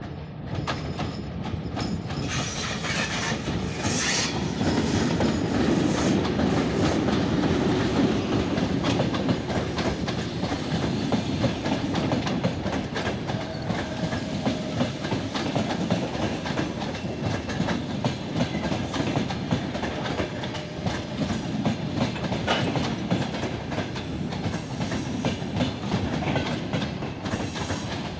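Passenger train passing at speed behind a VL82M dual-system electric locomotive: the locomotive goes by loudest in the first few seconds, then a long string of coaches rumbles past with wheels clicking steadily over the rail joints.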